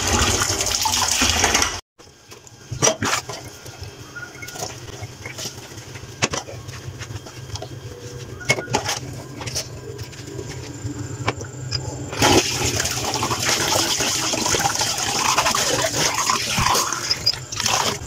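Kitchen tap running into a stainless steel sink as dishes are rinsed under it, breaking off abruptly about two seconds in. Then scattered clinks and knocks of a steel pan and glassware being scrubbed, and the tap running again from about twelve seconds in.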